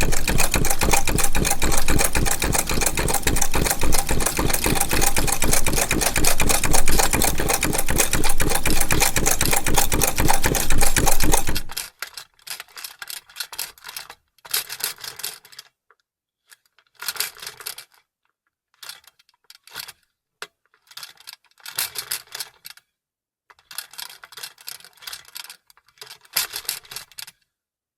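Vintage sewing machine running at a fast, even stitching rate, stopping suddenly about twelve seconds in. After it, short irregular bursts of handling noise with silent gaps between them.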